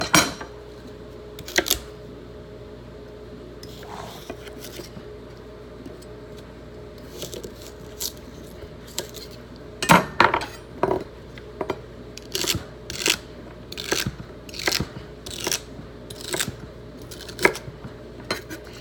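Kitchen utensils knocking and clinking during soup preparation: a few separate knocks at first, then a run of sharp knocks about two a second in the second half, over a faint steady hum.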